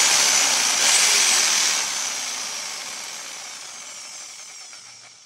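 A 750-watt corded jigsaw running free with no cut, at full speed for about two seconds. It is then switched off, and the motor spins down with a falling whine that fades over the next few seconds. Run off the freshly reset hook-up unit, it shows the supply working.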